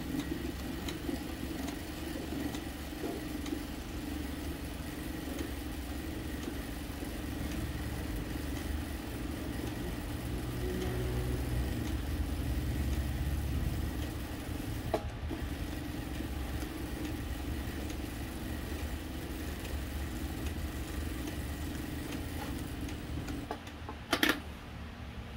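Asura industrial sewing machine running steadily as it stitches a garment, a continuous mechanical hum that swells a little around the middle. A sharp click comes midway and a louder knock near the end.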